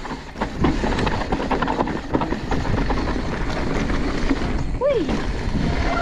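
E-mountain bike riding a rough trail: tyres on dirt and rocks, the bike rattling and knocking over the bumps, with wind on the microphone.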